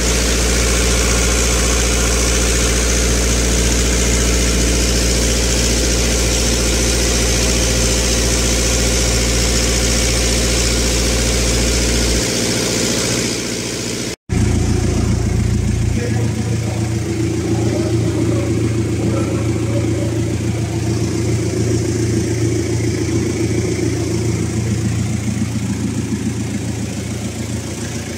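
Jeep Grand Cherokee engine idling steadily. The sound changes abruptly at a cut about halfway through, then carries on as a steady hum.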